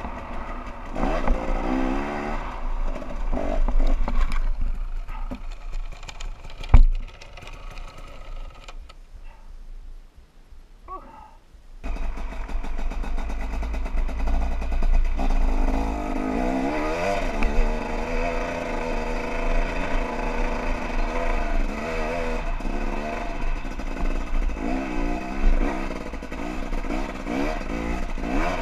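Dirt bike engine revving up and down while riding over a snowy trail, with one sharp thump about seven seconds in. The engine drops quieter for a few seconds, then runs hard again with repeated rising and falling revs.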